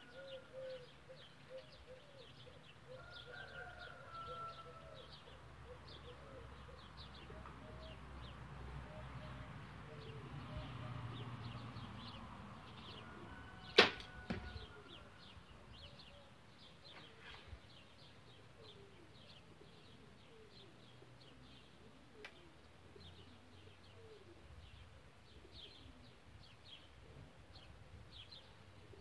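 A compound bow shot fired with a hinge (back-tension) release: one sharp snap of string and limbs about halfway through as the arrow leaves, followed by a few fainter ticks. Birds chirp repeatedly in the background throughout.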